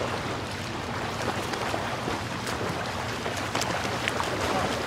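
Steady rush of splashing water with many small crackles and a low steady hum underneath.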